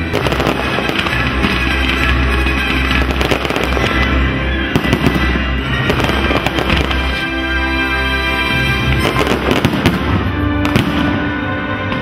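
Fireworks display: bangs and dense crackling from bursting shells and crackling stars, coming in clusters near the start, about five seconds in and again around nine to eleven seconds. Music with held notes and a steady bass plays throughout.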